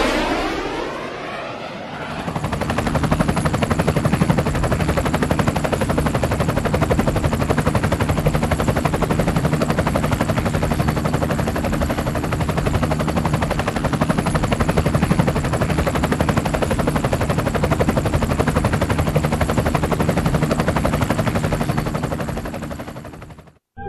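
Helicopter rotor chopping at a fast, even rate over a steady engine hum. It comes in about two seconds in, after a fading whoosh, and cuts off abruptly just before the end.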